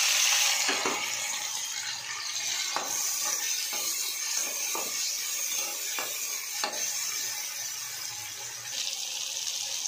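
Chopped tomatoes and browned onions frying in hot oil in a metal kadai, a steady sizzle that is loudest just as the tomatoes go in and then settles. A slotted metal spatula stirs the mix and knocks or scrapes against the pan about six times.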